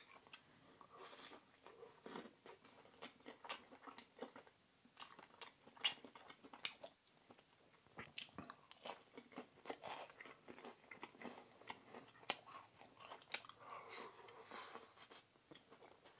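Quiet close-up chewing and mouth sounds of a person eating: irregular soft wet smacks and clicks with now and then a louder, crunchier bite.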